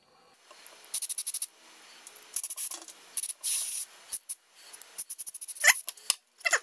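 Aerosol carburetor cleaner sprayed through a thin straw in short hissing bursts into the tiny fuel passages of a small-engine carburetor's jet and bowl retainer bolt, blasting out a plugged hole. A fast run of quick squirts comes about a second in, a longer spray about three and a half seconds in, and a brief sharp squeak about three-quarters of the way through.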